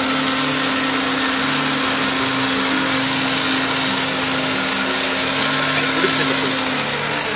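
Electric mixer grinder running at full speed, its steel jar blending Bermuda grass, spices and water into juice. A steady motor hum with a loud, even whir over it; the hum stops near the end.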